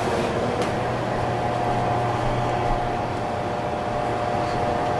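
Microwave oven running with a steady hum and a constant mid-pitched tone.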